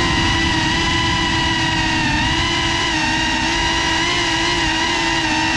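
Cinelog35 FPV cinewhoop drone's motors and ducted propellers whining steadily in flight, the pitch wavering slightly with throttle, over low wind rumble.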